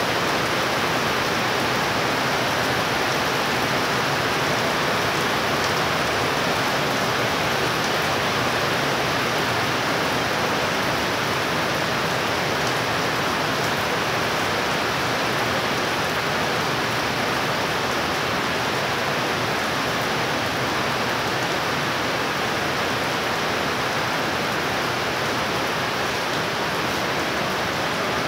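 Heavy rain pouring down: a steady, dense, even hiss.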